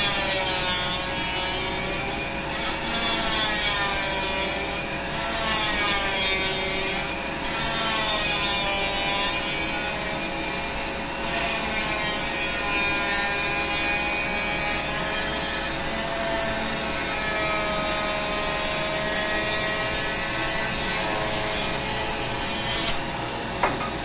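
Rotary power-carving tool grinding balsa wood with a burr, its pitch wavering as it bears into the wood, over the steady running of a vacuum drawing the dust through a water-filled jar. The grinding stops shortly before the end, leaving the vacuum running.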